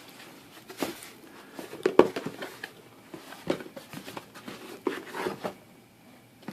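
A cardboard box being opened and its packaging handled: irregular knocks, scrapes and rustles, the sharpest knock about two seconds in.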